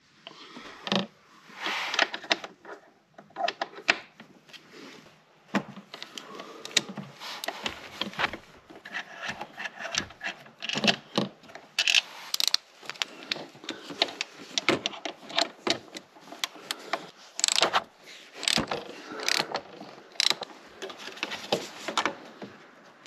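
Hand tools and small metal parts being handled: irregular clicks, knocks and short scrapes, some ratchet-like.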